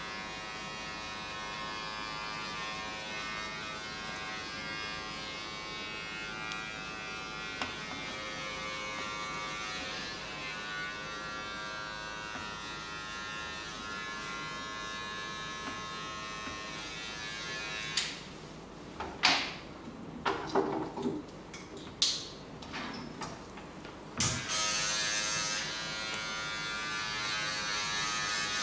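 A steady electric buzz with many overtones, like a small motor running. About eighteen seconds in it drops away for several seconds while a run of sharp taps and brushing noises comes, then the buzz returns.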